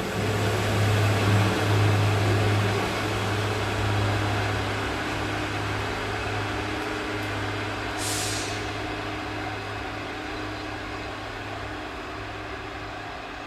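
Train running by with a steady low drone that slowly fades, and a short high hiss about eight seconds in.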